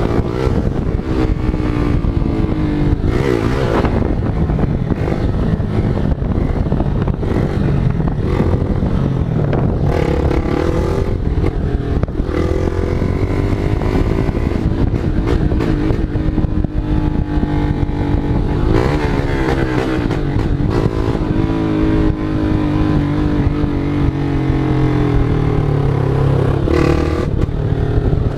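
Motorcycle engine running loud, its pitch rising and falling again and again as the throttle is opened and closed.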